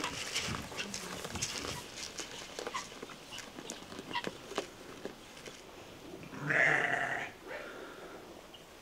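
Scattered light clicks and knocks, then a single drawn-out bleat from a farm animal, about six and a half seconds in and lasting about a second.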